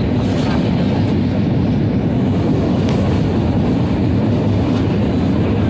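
Passenger train running at speed, a steady low rumble heard from on board, with a few faint clicks.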